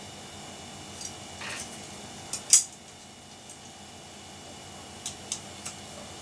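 Scattered light clicks and clinks of computer memory sticks being handled, the loudest about two and a half seconds in, over the steady hum of a running desktop computer.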